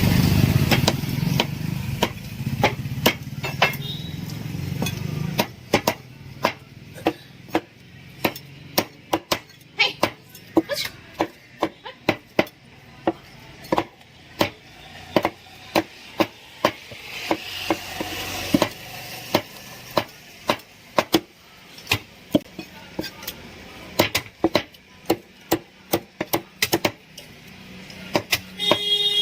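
Knife chopping on a cutting board in an irregular run of sharp strikes, about two or three a second. A low rumble underlies the first few seconds.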